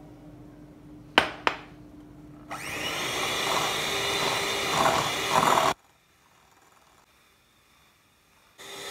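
Electric hand mixer running with its twin beaters in a glass bowl, creaming butter with caster sugar. Two sharp clicks come about a second in, the mixer sound starts about two and a half seconds in and cuts off abruptly near six seconds, then near silence until the mixer sound returns just before the end.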